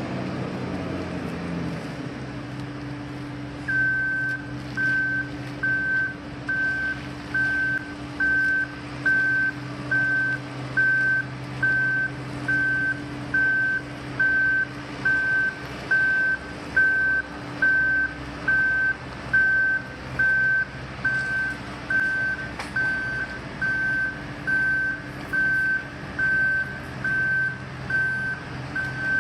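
Heavy road-construction vehicle's engine running steadily, with its reversing alarm starting about four seconds in: one high beep repeated evenly, a little faster than once a second.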